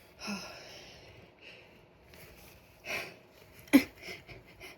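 A person breathing and sniffing through the nose while a sneeze is teased but does not come, with a sudden, loud, short catch of breath about three-quarters of the way in.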